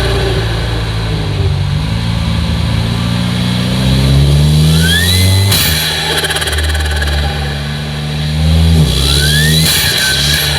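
Peugeot 408 THP's turbocharged four-cylinder engine revving up twice, the turbo whistle rising with it. Each time the throttle closes the whistle cuts off suddenly into a rapid fluttering chatter: turbo flutter, the compressor surging back against the closed throttle.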